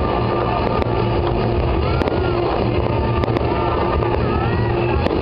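Fireworks display with music playing over it: a loud, steady din with a few sharp pops.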